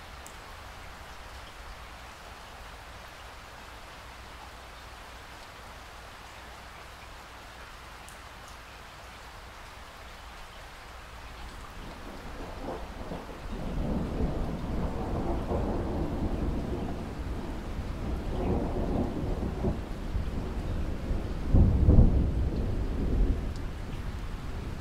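Steady rain, then thunder that rolls in about halfway through, rumbling and swelling, with its loudest peak near the end.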